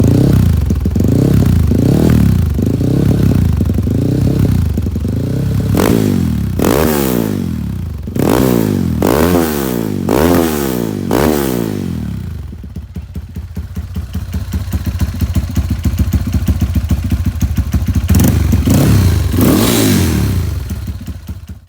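Honda CRF150 single-cylinder four-stroke motorcycle engine being blipped with the throttle: a quick run of short revs, then about five higher, sharper revs, settling to a steady idle around twelve seconds in, and revved again near the end before the sound cuts off.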